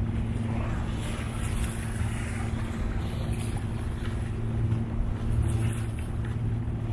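A steady low engine hum that holds one pitch, over a low rumble.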